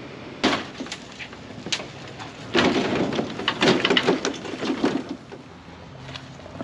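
Knocks and clattering of a kart on its wheeled metal stand being rolled out of an enclosed trailer and down a plywood ramp. There is one sharp knock about half a second in, then a dense rattle of hard knocks for a couple of seconds in the middle. A low steady hum comes in near the end.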